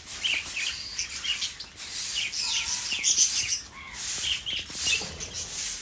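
A mixed flock of aviary birds, conures among them, calling in many short, overlapping chirps and squawks.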